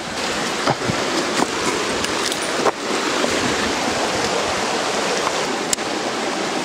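Shallow creek water rushing steadily over rocks, close by, with a few sharp clacks of loose stones underfoot.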